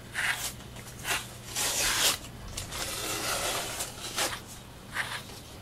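Grooming brush drawn through a cat's fur: a run of scratchy brushing strokes at an uneven pace, about eight in all, with a longer stretch of brushing in the middle.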